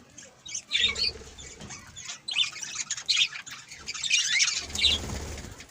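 Pet budgerigar chirping and squawking in several short bursts of high, scratchy chatter, with a low rumble in places.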